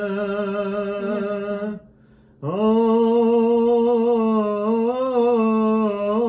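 A man's voice singing long drawn-out notes. It breaks off about two seconds in, then slides up into another long held note with a slight waver.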